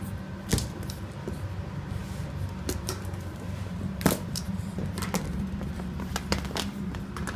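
Scattered sharp clicks and taps, the loudest about four seconds in, as a cockatoo's beak and claws work a plastic lid across the floor, over a steady low hum.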